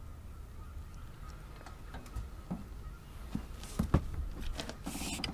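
Scattered light clicks and knocks of a rod and reel being handled at the boat's rod holders while a hooked catfish is fought, over a steady low rumble.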